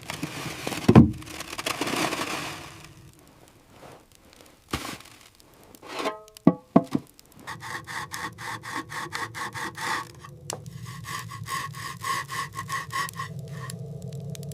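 Rhythmic rasping strokes, several a second, like wood being sawn or scrubbed, over faint music. Earlier there is a swishing sound with a heavy thump about a second in.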